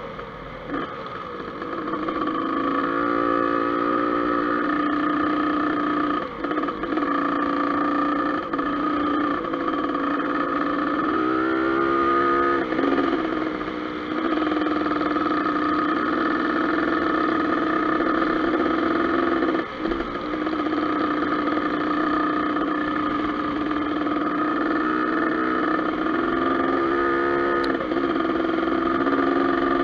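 Dirt bike engine running under way on a gravel road. Its pitch climbs and drops at gear changes about three seconds in, around eleven to thirteen seconds, and near the end.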